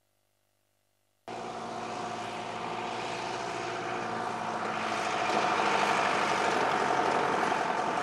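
Near silence for about a second, then a stake-bed truck driving by on a dirt road: steady engine and tyre noise that cuts in suddenly and grows louder as it comes closer.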